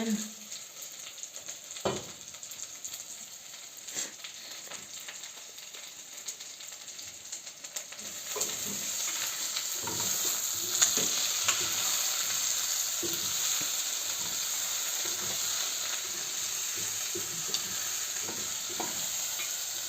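Chopped onions sizzling as they fry in a pan, with a utensil knocking and scraping against the pan as they are stirred. The sizzling grows louder about eight seconds in.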